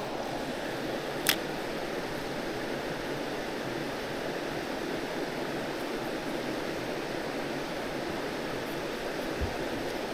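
Steady rush of water pouring over a spillway waterfall, with one short sharp click about a second in.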